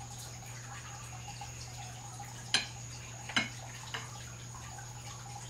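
A knife and carving fork slicing a roasted pork loin on a ceramic platter, the metal clicking sharply against the plate a few times from about two and a half seconds in, the first click loudest. A steady low hum runs underneath.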